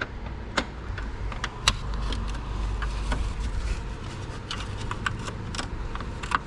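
Scattered small clicks and taps of hands working at the plastic clips and trim of a car's front grille, over a steady low background rumble.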